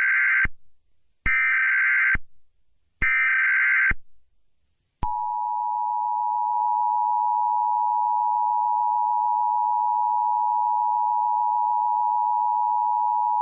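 Emergency Alert System SAME header: three short bursts of warbling digital data tones a second apart. These are followed by the EAS two-tone attention signal, a steady harsh dual tone held for about eight seconds. Together they mark the start of an alert broadcast, here a severe thunderstorm warning.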